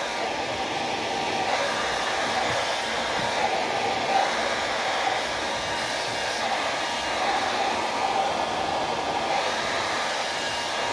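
Hand-held hair dryer running steadily on its hot setting, its nozzle held at the opening of a sneaker to dry the inside after wet cleaning.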